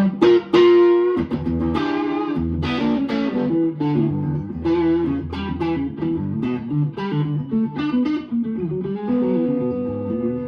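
New PRS electric guitar played on its neck pickup through a Fender Princeton Reverb amp, picking a quick melodic line of single notes and chord fragments with a clear tone. A note is held and sustains near the end.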